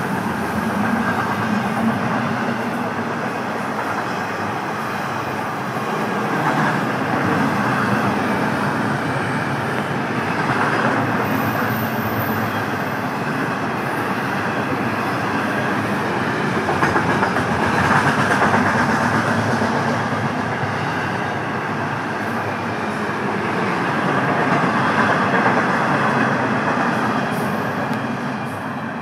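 Florida East Coast Railway intermodal freight train's container cars rolling past close by. The steady rolling wheel noise rises and falls every few seconds, then starts to fade near the end as the last car goes by.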